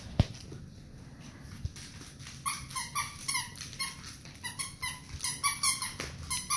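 A dog whining in a run of short, high-pitched cries, two or three a second, starting about two and a half seconds in. A single sharp knock comes just after the start.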